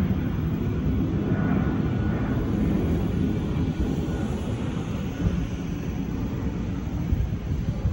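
Jet engines of an Airbus A319-132 (IAE V2500 turbofans) in flight overhead: a steady low rumble that slowly fades toward the end.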